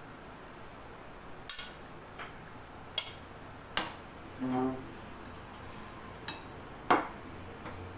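Spoons clinking against glass serving bowls and a glass plate, several separate sharp clinks with the loudest near the end. A short low-pitched sound comes about halfway through.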